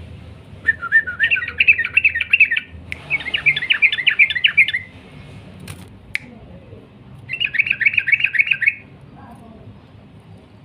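Yellow-vented bulbul (trucukan) singing three bursts of rapid, rolling chattering notes, each one to two seconds long, with a short pause between the first two and a longer gap before the third. A faint low rumble lies underneath.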